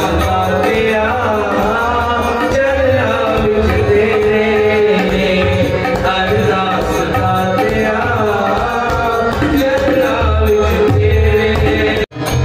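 Sikh kirtan: tabla played by hand under harmonium and a male voice singing the hymn. The sound cuts out for an instant near the end.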